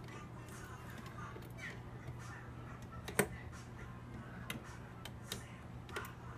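Scattered sharp metallic clicks from a pair of handcuffs being forced and worked by hand, the loudest about three seconds in, over a low steady hum.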